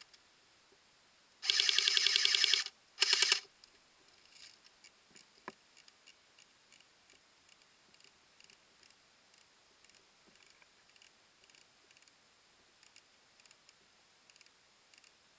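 Electric airsoft gun firing two full-auto bursts: a longer one of about a second, then a short one. The gearbox buzzes and the shots rattle off in rapid even pulses. Faint scattered ticks follow.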